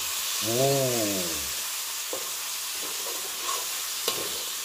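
Spice paste with oyster sauce and black soy sauce sizzling steadily in a hot steel wok as a metal spatula stirs and scrapes it, with a couple of clicks of the spatula against the pan. About half a second in comes a brief hum that rises and falls in pitch.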